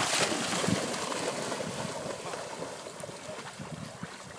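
Labradors wading through shallow seawater: splashing and sloshing, loudest at the start and fading away.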